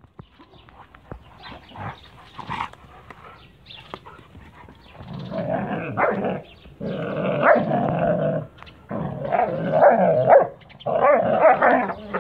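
Kangal shepherd dogs play-fighting, growling in long stretches from about five seconds in, after a quieter start.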